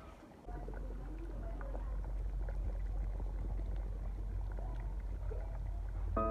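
A pot of thick pig's-trotter and red-chilli stew boiling hard: a steady low bubbling rumble that starts about half a second in.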